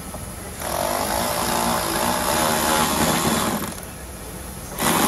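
Cordless electric ratchet running as it drives a bolt at the wheel arch, one run of about three seconds starting under a second in, then a short second burst near the end.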